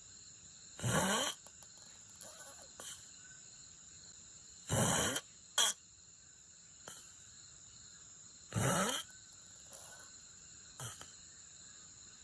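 A sleeping person snoring: three loud snores about four seconds apart, each lasting about half a second, with a brief sharp sound just after the second.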